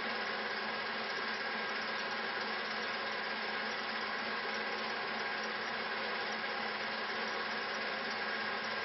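Steady motor hum with hiss and a faint high whine, unchanging throughout, typical of a film projector running.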